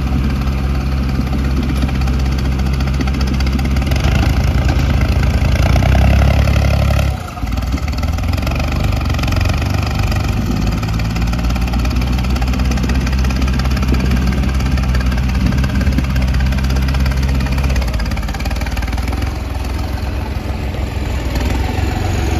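New Holland 3630 tractor's diesel engine running. It grows louder up to about seven seconds in, dips sharply for a moment, then runs on steadily, easing slightly near the end.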